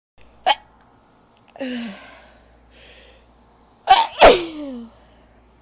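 A woman sneezing twice. The first sneeze is smaller, about a second and a half in; after a short in-breath comes a loud sneeze whose voiced 'choo' falls in pitch. A brief sharp click comes just before the first sneeze.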